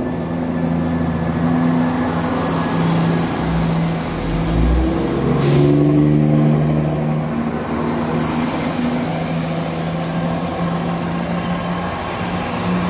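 ScotRail Class 170 Turbostar diesel multiple unit's underfloor diesel engines running steadily as the train pulls out past the platform. The engine note shifts about five seconds in, with a short hiss at the same time.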